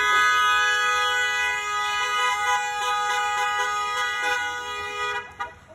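A car horn held down, a steady two-note tone sounding without a break for about five seconds, then cutting off suddenly.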